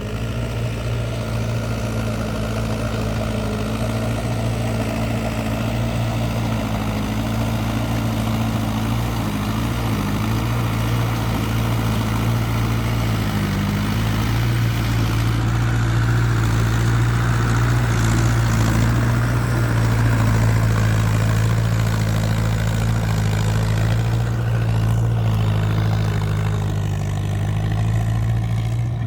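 International 276 tractor's diesel engine running steadily while it works a rotary tiller through paddy mud. It gets a little louder about halfway through, then eases back.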